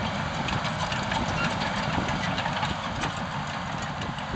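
Caterpillar D6H LGP high-track bulldozer running, its diesel engine holding a steady speed, with many small clanks and ticks from the steel tracks as the machine moves.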